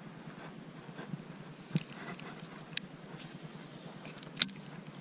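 A few sharp, isolated clicks from a baitcasting rod and reel being handled, the loudest near the end, over a faint steady low hum.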